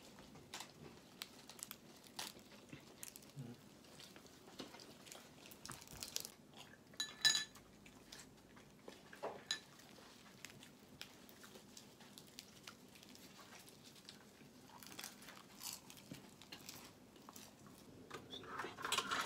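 Quiet table sounds of a meal: chopsticks tapping and scraping on ceramic bowls and plates in scattered small clicks, with a louder ringing clink of dishware about seven seconds in and another about nine and a half seconds in.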